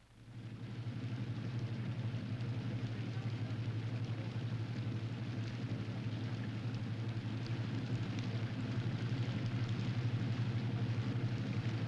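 A boat engine running steadily with a low hum, under a rough wash of water noise with fine crackles; it cuts in suddenly.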